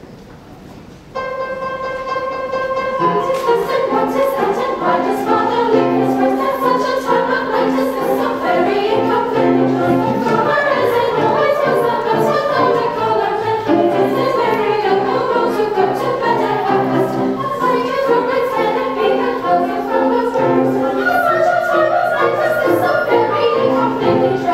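Live pit orchestra playing operetta music with choral singing. After a quiet opening second a held chord comes in, and about three seconds in it builds into a fuller, busier passage that stays loud.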